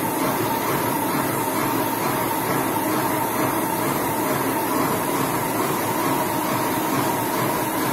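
Airless sprayer running steadily while spraying putty onto a wall: a constant mechanical hum with a hiss from the spray.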